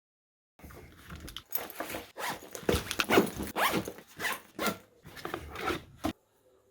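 A zipper being pulled in a quick series of short, irregular rasping strokes for about five and a half seconds.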